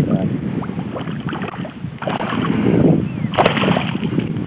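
Shallow water lapping and sloshing at the bank, mixed with wind buffeting the microphone, getting louder about two seconds in and again near the end.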